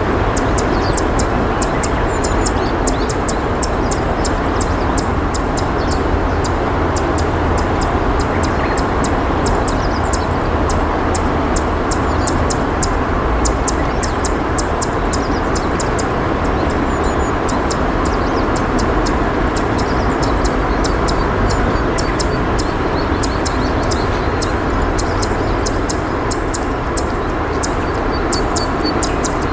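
Steady rush of flowing river water, with a quick run of short, high ticks over it throughout.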